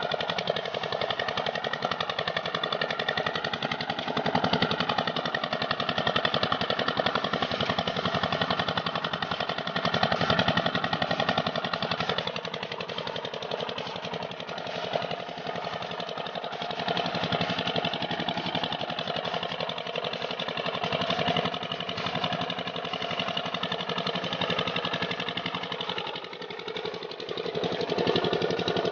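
Stationary diesel irrigation pump engine running steadily with a rapid, even chugging beat, while water gushes from the pump's outlet pipe and splashes onto the ground.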